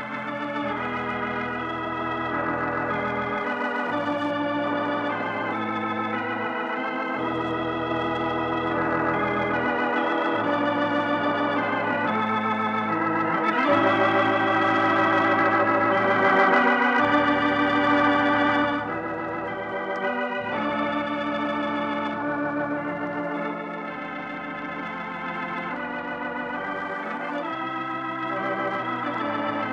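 Organ closing theme music: slow sustained chords with a wavering vibrato, changing every few seconds. It swells louder about halfway through, then drops back.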